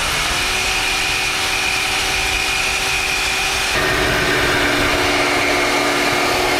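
Power cutting tool running steadily as it cuts through the steel exhaust pipe of a 4th-gen Camaro Z28, its tone shifting about four seconds in.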